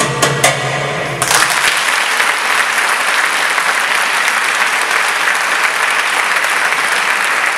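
The last note of the dance music dies away, and about a second in the audience breaks into steady applause.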